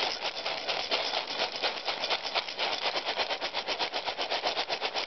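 Dry dog kibble rattling in a bowl as it is mixed briskly, a fast, even rattle of about nine or ten strokes a second.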